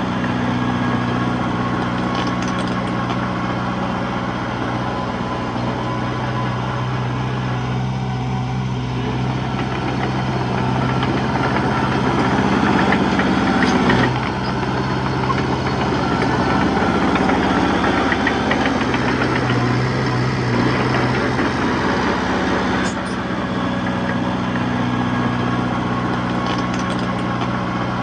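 Diesel engine of a Komatsu D21P bulldozer running steadily while pushing soil, growing louder for a few seconds at a time as it takes more load.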